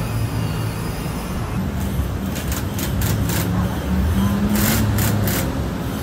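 Steady rumble of street traffic. In the second half, a cordless drill-driver runs in several short bursts as it fastens a metal rear rack onto a scooter, the longest about four and a half seconds in.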